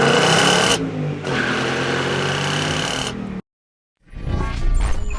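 Ford Mustang GT's Coyote V8 running loud and steady, cut off abruptly. After about half a second of silence, a low swelling sound rises near the end.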